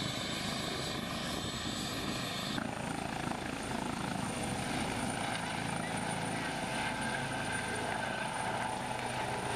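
Eurocopter EC135 trauma helicopter running at take-off power and lifting off: a steady rotor and turbine sound with a high whine. The sound shifts abruptly about two and a half seconds in.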